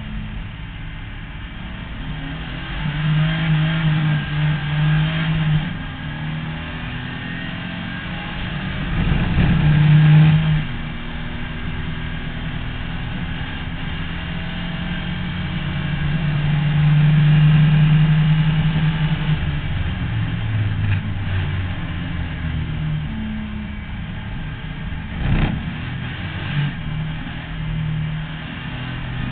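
Zilhouette race car's 2.5-litre BMW engine heard from the cockpit, running hard on a track. It repeatedly gets louder under acceleration and drops back as the driver lifts, with short knocks near the middle and near the end.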